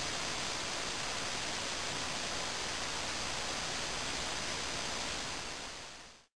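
Steam hissing steadily from the jets of a homemade 5-inch steel-ball aeolipile spinning under full steam pressure. The hiss fades out and stops just before the end.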